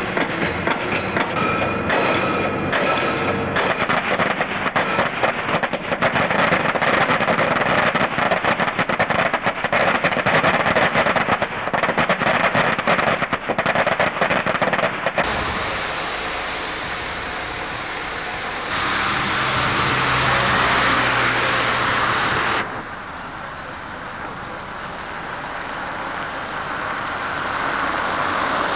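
Pile-driving rig hammering a foundation pile: a loud, fast, continuous clatter of blows over machine noise. After about fifteen seconds it cuts off abruptly to a steadier rushing noise.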